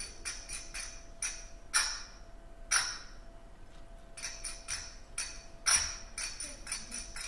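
Finger cymbals (zills) struck in a quick rhythmic pattern. Two louder ringing strikes come about two and three seconds in, followed by a sparser stretch. The quick pattern then picks up again, with another loud ringing strike near six seconds.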